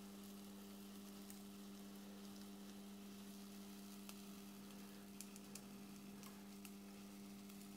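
Proxxon Thermocut hot-wire cutter slicing through a Styrodur foam block: a faint sizzle of the hot wire melting the foam, with a few small ticks, over a steady low hum.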